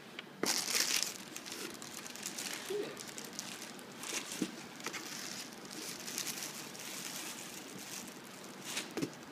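Tissue paper rustling and crinkling as a present is pulled from its gift box, loudest for a moment about half a second in, then a steady run of small crackles.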